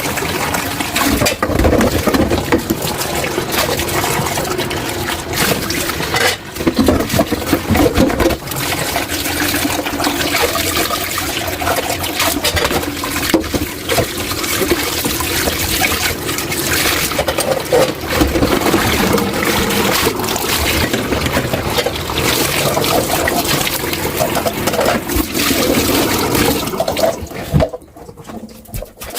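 Tap water running and splashing into a kitchen sink while dishes are washed, with scattered knocks of dishes. The running water drops away sharply shortly before the end.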